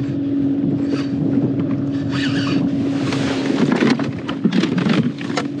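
Wind buffeting the microphone over choppy open water, under a steady low hum. A run of sharp clicks and knocks comes from about three to five and a half seconds in as gear on the kayak is handled.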